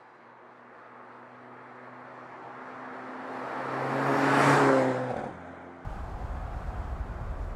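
Mercedes-AMG SLC 43's twin-turbo V6 approaching and passing close by, its engine note swelling to a peak about four and a half seconds in and dropping slightly in pitch as the car goes by. About six seconds in it switches suddenly to a steady low rumble as the car is followed from behind.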